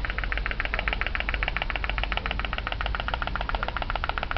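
Homemade pop-pop toy boat's steam engine running: a rapid, even putt-putt of sharp pops as its heated boiler flexes and pushes water out of its tubes in pulses.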